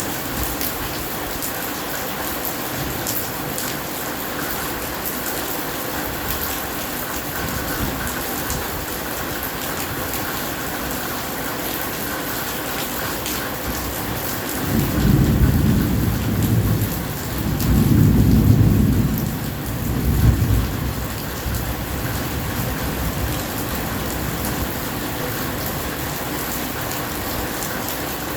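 Steady heavy rain, with a peal of thunder rumbling low about halfway through in three swells over some six seconds, loudest in the middle, before the rain carries on alone.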